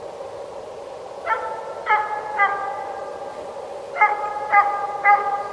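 A hunting dog barking: six drawn-out, ringing barks in two runs of three, over a steady background hiss.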